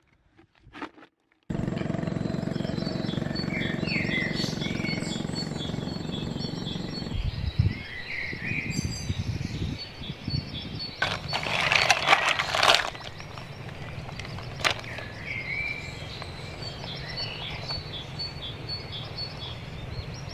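After a moment of silence, outdoor ambience starts suddenly: birds chirping and calling over a steady low background rumble, with a brief burst of noise about eleven seconds in.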